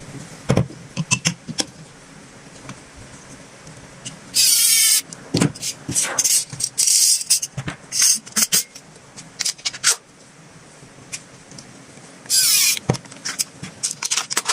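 Plastic toy gun being handled and worked: a string of sharp clicks and clacks, with two longer noisy bursts of about half a second, about four and a half and twelve and a half seconds in.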